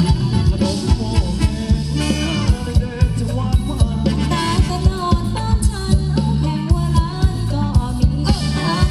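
Thai ramwong dance music from a live band over loudspeakers: a singer over a steady drum beat and bass.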